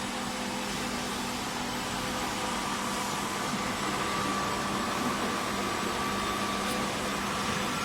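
Automatic pipe welding machine running: a steady hiss with a constant electrical hum.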